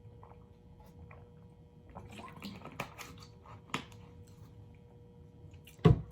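Close-up chewing and wet mouth sounds of someone eating, with scattered sharp clicks, and a single loud thump near the end.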